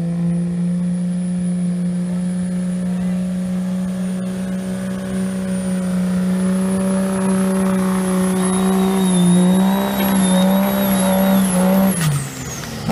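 Dodge Ram 3500's turbocharged Cummins diesel six held at full throttle under the load of a pulling sled, a steady high-revving drone with a thin turbo whistle that slowly climbs. Near the end the engine pitch wavers, then drops sharply as the throttle is let off, and the turbo whistle falls away with it.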